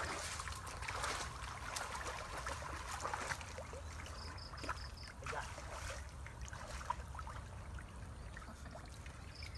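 Shallow muddy pond water splashing and trickling as people wade and work through it by hand, with many small irregular splashes.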